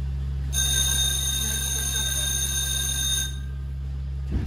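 A tram's electric signal bell rings steadily for about three seconds, starting about half a second in, over a steady low electrical hum.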